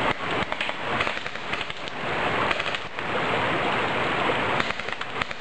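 Crackling, rustling noise with many small irregular clicks, the sound of handling and movement on a camcorder's microphone outdoors.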